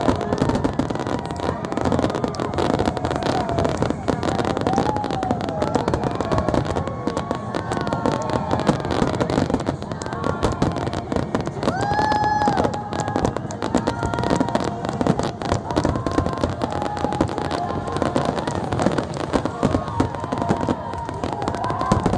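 Fireworks crackling and popping in a dense, unbroken stream. Gliding whistle-like tones rise and fall above the crackle, one held for about a second near the middle.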